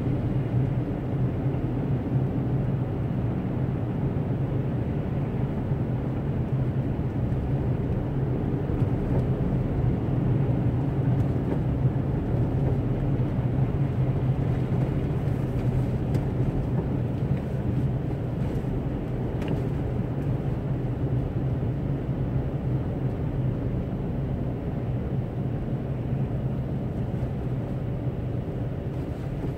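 Steady low rumble of a moving car heard from inside the cabin: engine and tyres on a snow-covered road.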